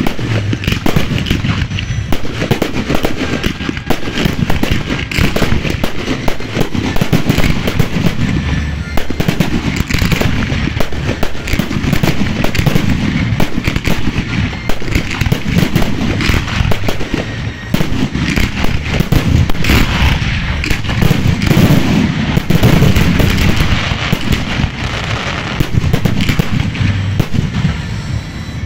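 Professional aerial fireworks display: shells bursting in a dense, near-continuous barrage of bangs and crackling, with no pause.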